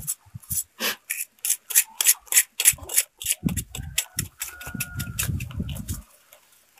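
Machete blade scraping the charred skin off a fire-roasted snakehead fish in quick rasping strokes, about three or four a second, stopping about six seconds in.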